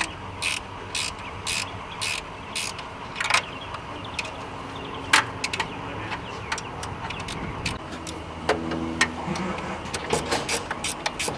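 Hand ratchet wrench clicking in short runs of strokes as the last intake bracket bolts are tightened down.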